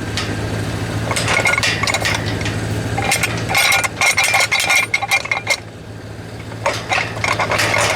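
Steel padlocks and the sliding bar of a welded gate lockout clinking and scraping as the bar is slid out, with bright ringing metal clinks in two spells, over a steady low hum.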